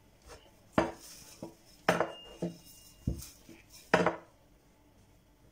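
Kitchen utensils knocking and clattering on a stone countertop: four sharp knocks about a second apart with lighter taps between, one knock leaving a brief ringing tone.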